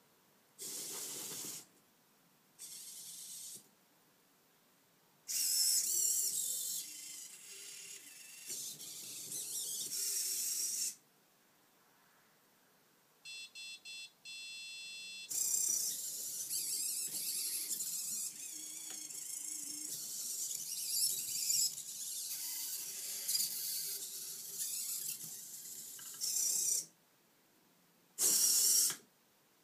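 Servo motors of a Futaba RBT-1 humanoid robot whirring in separate bursts as its joints move, with quiet gaps between moves. About halfway, three short electronic beeps and then a longer tone.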